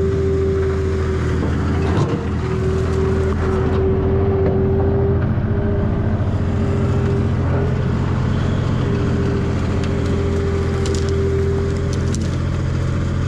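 Skid steer engine running steadily under load, with a higher whine over it that drops out and comes back several times. A sharp knock sounds about two seconds in.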